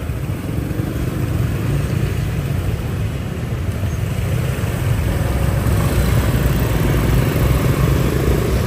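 City street traffic: motorbike and car engines running, a steady low rumble that grows slightly louder near the end.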